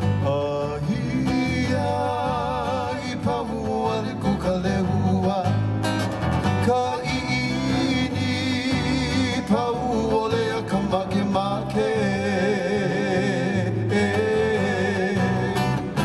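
Hawaiian song for hula: a singer holding wavering notes with vibrato over strummed acoustic guitar and a steady low bass line.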